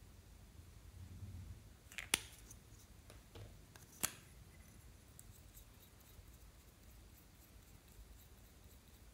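Two sharp clicks about two seconds apart, with a fainter one between them, as a plastic makeup crayon is handled against glass dishes.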